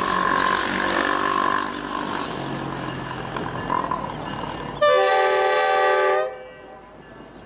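One long blast of a steam locomotive's chime whistle, several notes sounding together, starting suddenly about five seconds in and cutting off after about a second and a half. Before it, a steady hum and passing road traffic.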